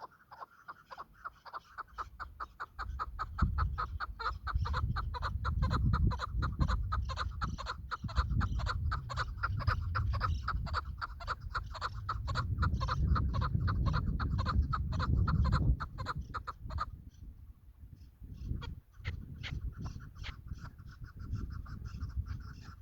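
Chukar partridge calling: a long, fast run of repeated clucking 'chuk' notes, about five a second, breaking off briefly near the end and then starting again. A low rumble sits under the calls through most of the run.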